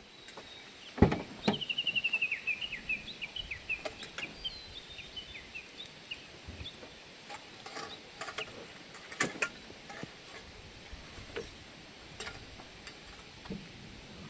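A bird singing a run of quick notes that fall in pitch and slow down, over quiet outdoor background. Scattered sharp knocks come through as well, the loudest about a second in.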